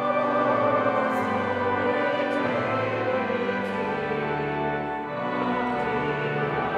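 Church organ playing slow, sustained chords that change every second or two, with a few faint high clicks over it.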